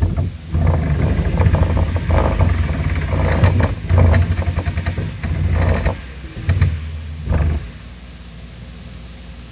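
QueenAnt PRO CNC machine's stepper motors driving the laser head through short engraving moves, running in uneven spurts with a low hum. The motion stops at about 7.5 seconds in, leaving a quieter steady hum.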